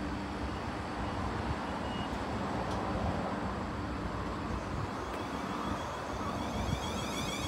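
South Western Railway class 444 Siemens Desiro electric multiple unit moving slowly past the platform: a steady rumble of wheels on rail with a low hum, and a higher whine from the train joining near the end.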